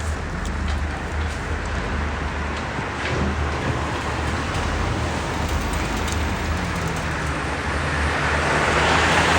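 Road traffic going by, a steady rumble of passing cars, with one vehicle passing louder near the end.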